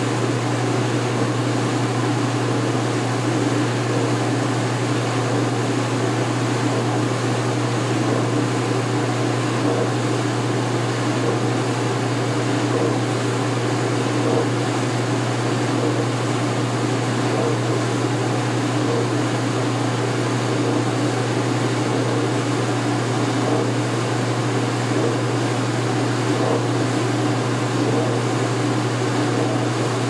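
2016 Speed Queen top-load washing machine in its final spin, its belt-driven tub running with a steady, even hum that does not change.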